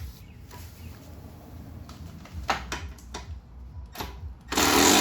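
A few sharp metal clicks of a socket tool on the skid-plate bolts, then about four and a half seconds in a power tool's motor starts suddenly and runs loudly, spinning out a bolt.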